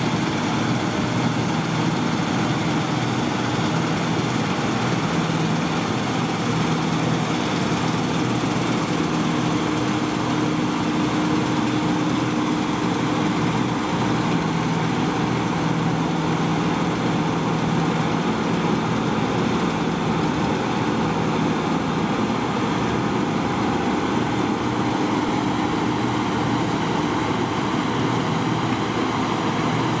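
Claas Lexion 570 combine harvester running steadily while cutting and threshing winter barley. Its engine and threshing machinery make a continuous, even hum with a held low tone.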